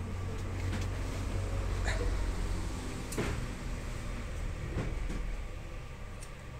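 A few light clicks and knocks, about three in all, as hands handle metal parts and a sensor under an embroidery machine's table, over a steady low hum.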